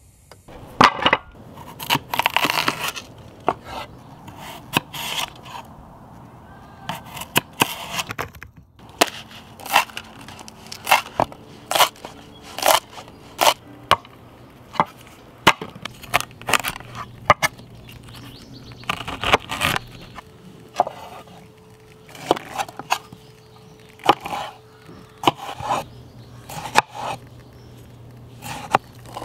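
Knife cutting vegetables on a wooden cutting board: a run of sharp chops and slices at uneven intervals, some cracking through firm produce.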